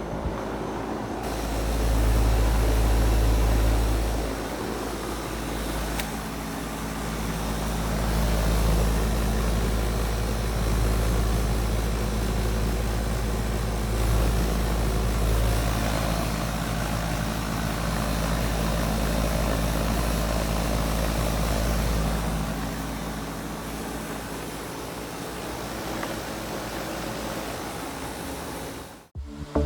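Bryant Sentry 5-ton central air conditioner's outdoor condensing unit running steadily: the compressor hums and the condenser fan runs, under a low rumble that swells and eases.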